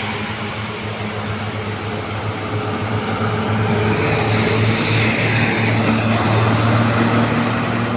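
Heavy road vehicle's engine running with a steady low hum over road and wind noise, growing louder in the second half as it draws near.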